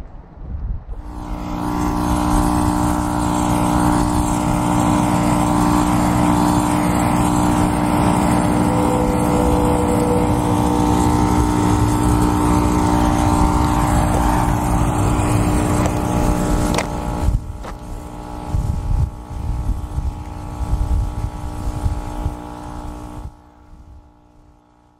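Vehicle driving on a desert dirt road, heard from a camera mounted on its roof: a loud, steady drone of tyres, engine and wind. About two-thirds of the way through it turns into a rougher, gustier rumble, and it fades away near the end.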